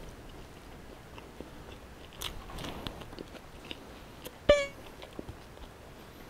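A person chewing a mouthful of crispy breaded chicken sandwich close to the microphone, with scattered small crunches and mouth clicks. About four and a half seconds in, one short, loud pitched note stands out as the loudest sound.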